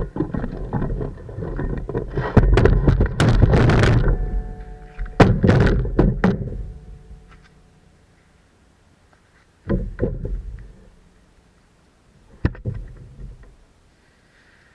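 A run of thumps and knocks with rustling, loudest in the first six seconds, then two single thumps about ten and twelve and a half seconds in.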